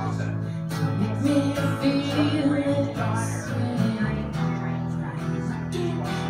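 Live acoustic duo: a strummed acoustic guitar and a woman's singing over a bowed electric upright bass holding long, low, sustained notes.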